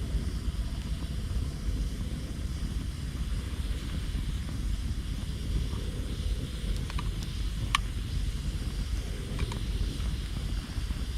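Campfire of gathered branches and driftwood burning: a few sharp crackles and pops, clustered between about seven and ten seconds in, over a steady low rumble.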